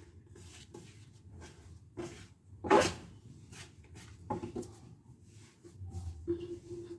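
Bread dough being kneaded by hand on a kitchen counter: a few scattered soft thumps and knocks, the loudest about three seconds in.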